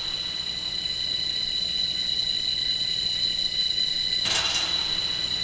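Eerie drone of horror title music: a steady high-pitched ringing chord over a low hum, with a brief whooshing swell about four seconds in.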